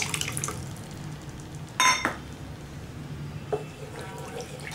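Tamarind water pouring into a pan of tomato masala trails off at the start. Just before two seconds in, a single loud ringing clink of a metal utensil against cookware is the loudest sound. A spatula then starts stirring the sauce, with a light knock against the pan.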